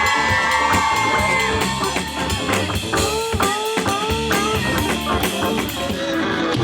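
Music with a steady drum beat and guitar, and a melody line that slides in pitch.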